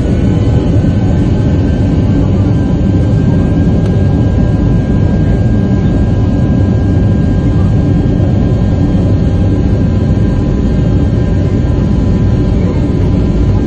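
Airliner's turbofan jet engine heard from inside the cabin as the plane rolls along the runway: a loud, steady rumble with a thin steady whine above it.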